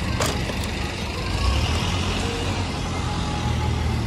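Steady low rumble of a moving vehicle, with music mixed in.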